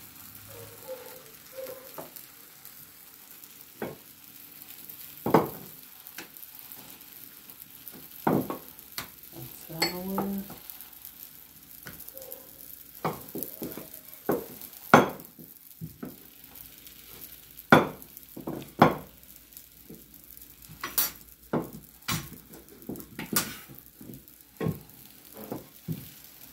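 Wooden rolling pin knocking and rolling on a floured countertop as roti dough is rolled out, giving many irregular sharp clacks, over the faint steady sizzle of a roti frying in a pan.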